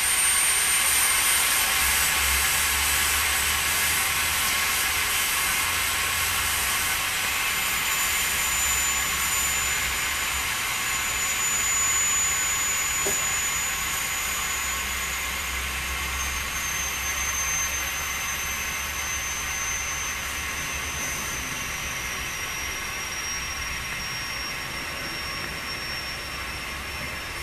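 Compressed air hissing steadily out of a truck tractor's disconnected service-line glad hand while the brake pedal is held down, the air system bleeding down during a tractor protection valve test. The hiss slowly fades, and a faint high whistle in it drops lower in pitch in steps.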